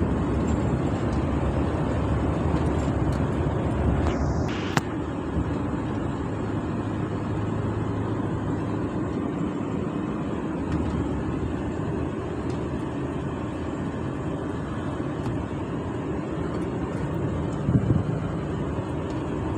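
Steady engine and road noise of a truck driving at speed, heard inside the cab. There is a brief click about five seconds in.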